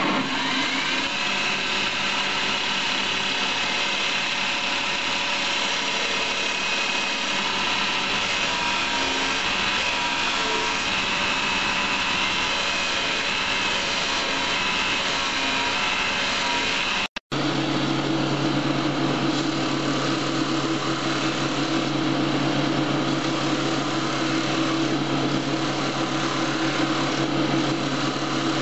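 Belt grinder rising in pitch as its motor comes up to speed in the first second, then running steadily while a steel knife blade is ground against the abrasive belt. The sound cuts out for a moment about two-thirds of the way through, and after that a steady low hum is stronger.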